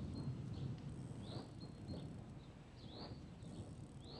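A bird calling repeatedly: short, high chirps that rise and fall, about one or two a second, over a low background rumble.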